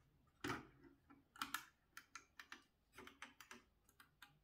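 Logitech G604 gaming mouse clicking: an uneven series of small, sharp clicks, a few a second, some in quick pairs.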